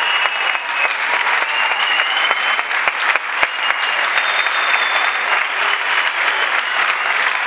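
Crowd applauding steadily, the dense patter of many hands clapping, with a few long high whistles over it in the first half and again around four to five seconds in.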